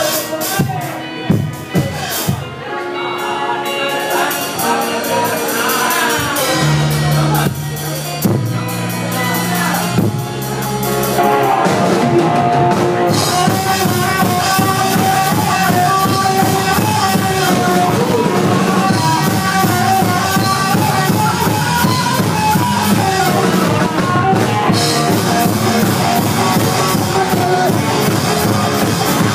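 Live rock band playing in a club. The first stretch is sparser, with single drum hits and held bass notes. About eleven seconds in, the full band comes in, louder and denser.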